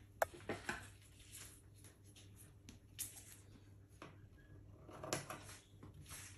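Gloved hands handling thin sheets of edible metallic paper on a work board: a sharp tap just after the start, then brief rustles and crinkles three times, the last and longest about five seconds in.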